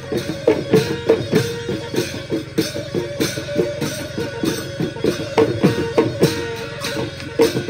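Background music with a quick, steady drum beat and plucked strings.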